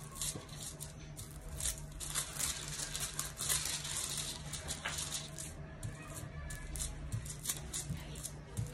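Thin gold transfer foil crinkling and rustling as fingertips press and rub it down onto glued velvet fabric, in irregular small crackles.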